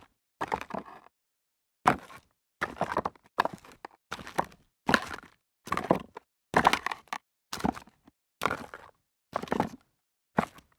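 Footsteps crunching on loose ground, about one step every 0.8 seconds, with a pause of about a second near the start.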